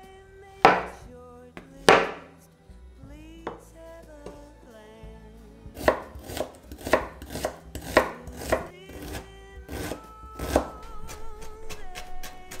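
Chef's knife cutting on a wooden chopping board: two single knocks as it slices through button mushrooms, then, from about six seconds in, a run of quick chopping strokes, about three a second, through garlic and onion. Soft background music with held notes underneath.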